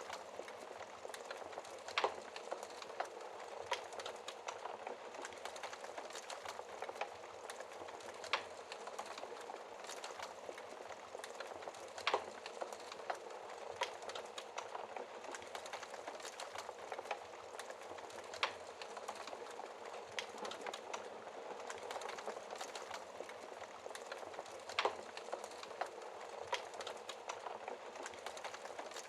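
Wood fire burning behind a fireplace's glass door: a steady hiss of flame with scattered small crackles and a few sharper pops every four to six seconds.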